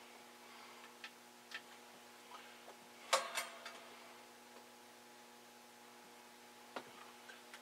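Faint scattered clicks and taps from handling the ham radio station's controls, with a louder cluster about three seconds in and single clicks near the end, over a steady low electrical hum.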